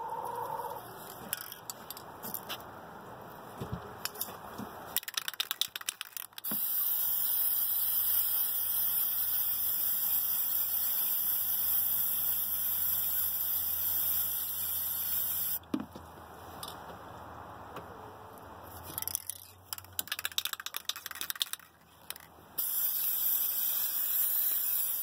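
Aerosol spray paint can shaken, its mixing ball rattling rapidly, then sprayed onto water in a steady hiss lasting about nine seconds. It is shaken again and a second long hiss starts near the end.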